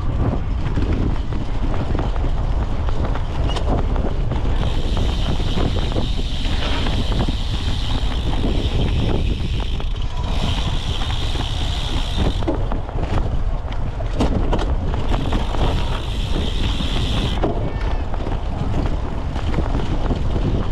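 Wind buffeting the microphone of a seat-mounted camera on a racing cyclocross bike, with the bike rumbling and rattling over rough ground. A higher hissing buzz comes and goes in several stretches of a few seconds, with a few sharp knocks near the middle.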